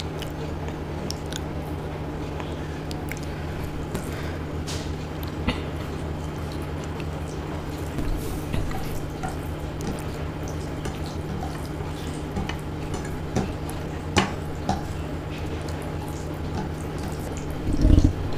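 Fingers mixing and squishing soft khichdi on a plate, with small wet clicks and smacks over a steady low hum. A heavy low thud near the end.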